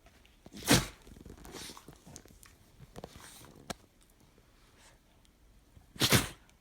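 Two sharp sneezes about five seconds apart, with quieter sniffs and snorts in between, from something that has got into the nose.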